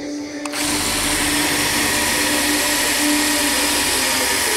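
Cordless drill running steadily under load, its bit drilling into the mounting of a power-window motor on a window regulator; it starts about half a second in.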